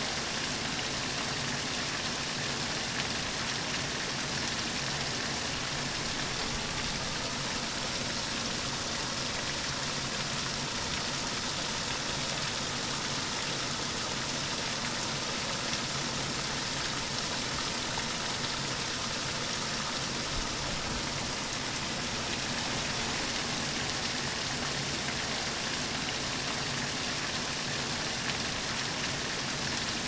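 Small waterfall falling over a sandstone ledge and splashing steadily onto the rock below, a dense, even hiss of water.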